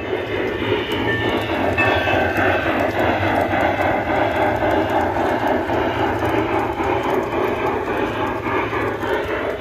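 LGB G-scale model steam locomotives running along the track, a steady, even running noise with a constant low hum.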